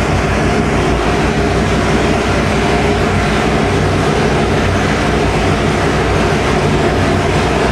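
Roots-supercharged 572 cubic inch big-block Chevrolet V8 running steadily on an engine dyno, its pitch holding level with no revving.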